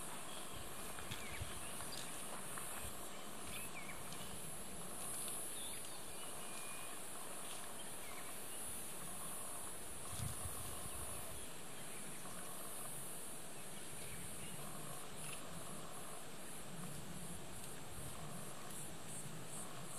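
Outdoor bush ambience: a steady high-pitched buzz that turns into rapid even pulsing near the end, scattered small chirps, and one low thump about ten seconds in.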